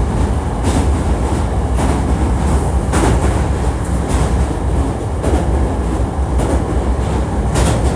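Hankyu 1300 series electric train running, heard from inside the car: a steady low rumble with a wheel click over rail joints about once a second.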